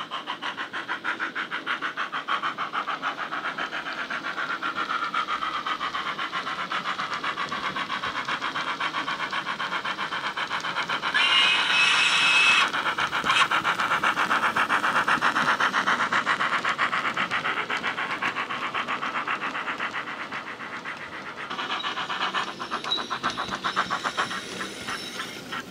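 Digital sound from the LokSound 5 decoder in a Bachmann OO-gauge Ivatt 2MT tank locomotive, played through its small sugarcube speaker: steady, rapid steam-exhaust chuffs as the model runs under way. About eleven seconds in there is a short, louder blast with a high steady tone.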